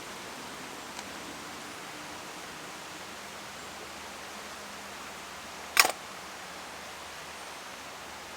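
Steady hiss, with a faint click about a second in and a single sharp knock or clack a little before six seconds in.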